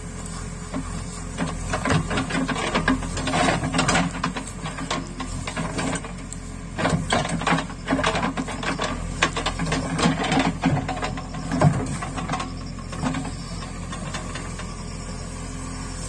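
JCB 3DX backhoe loader's diesel engine running steadily as the backhoe digs, with irregular crackling and scraping from the bucket working through soil and grass, busiest from about a second and a half in until about eleven seconds.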